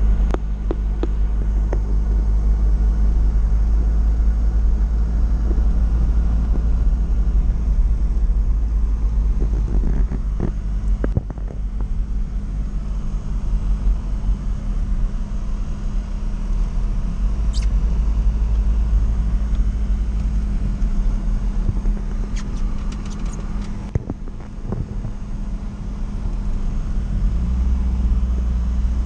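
UAZ-452 'Bukhanka' van driving along, heard from inside the cab: its engine runs with a steady low drone that shifts slightly in pitch now and then, with a few light clicks and rattles.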